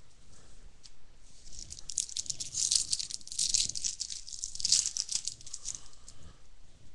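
Crinkling and rustling of a Topps baseball card pack as it is handled and torn open, a dense run of small crackles that is loudest in the middle.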